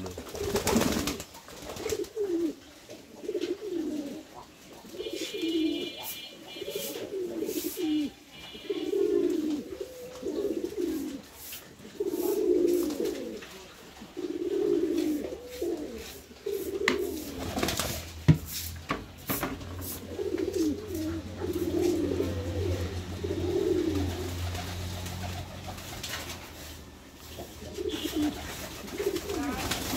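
Domestic pigeons cooing over and over, with scattered sharp knocks, wing flaps and splashes as the birds bathe in a shallow water basin. The loudest knock comes about 18 seconds in.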